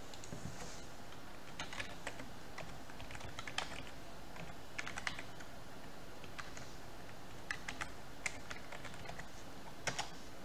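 Typing on a computer keyboard: irregular keystrokes in short runs, over a steady faint hiss.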